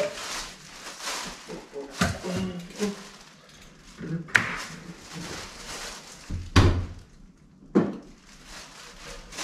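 Scattered knocks and thuds of tools and materials being handled, about four in all, the loudest a heavy thud about two-thirds of the way through, between quieter handling noise.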